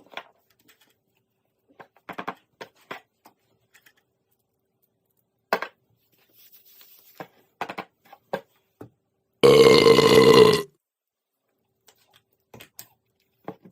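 Scattered faint short sounds, then about two-thirds of the way through a loud, steady-pitched burp lasting about a second.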